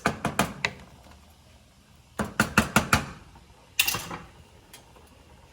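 Kitchen utensils and cookware clicking and knocking against each other. There are a few quick knocks at the start, a fast run of about six more about two seconds in, and a short rattling scrape near the four-second mark.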